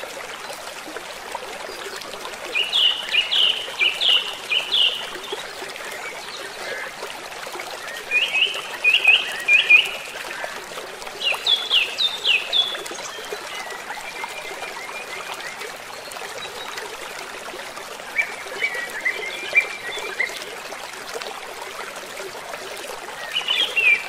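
River water flowing steadily over rocks, with a songbird singing short phrases of chirps several times over it.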